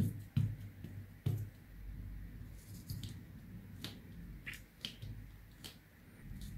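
A StazOn ink pad dabbed onto a rubber stamp: a few soft taps in the first second and a half. Then the stamp is pressed and rubbed down onto paper, with light clicks and paper rustling.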